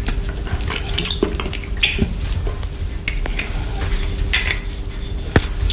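Close-miked wet mouth sounds from licking and sucking a chocolate lollipop coated in whipped cream: irregular smacks and clicks, with one sharper click near the end.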